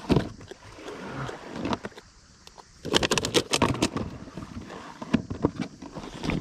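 A plastic cool box being opened and handled, with a sharp click near the start and a quick flurry of knocks and scrapes about three seconds in, along with pebbles shifting underfoot.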